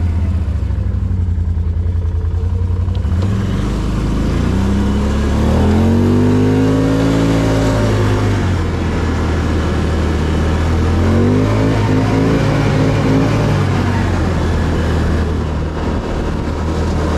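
Can-Am Outlander ATV engine running under way, the throttle opened and eased off twice so that the pitch rises and falls each time.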